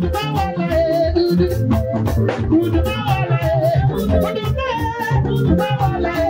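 Amplified live gospel praise music: a woman sings through a microphone over a band accompaniment with a steady bass line and a quick, even percussion beat.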